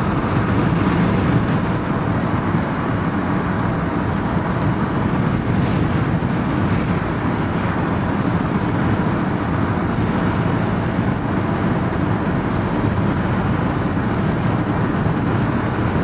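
Steady engine and road rumble heard from inside a vehicle's cab, even and unbroken, with no distinct knocks or changes.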